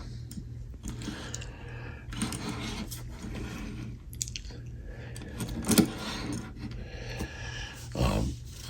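Small diecast model trucks being handled: soft scrapes and light clicks, with a brief louder knock about six seconds in and another near the end, over a steady low hum.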